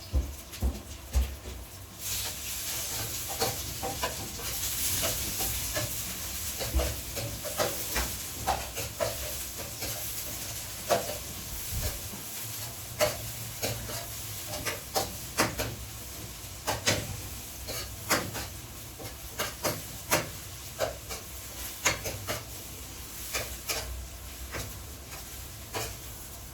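Onions sizzling in hot sunflower oil in a frying pan, the hiss starting about two seconds in, with a spatula repeatedly clicking and scraping against the pan as they are stirred.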